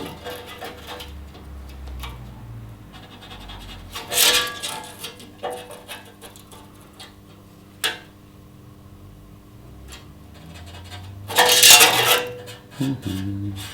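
Sheet-steel panel and tools being handled: light metallic clinks and scrapes, a sharp click about eight seconds in, and a louder scraping rattle near the end.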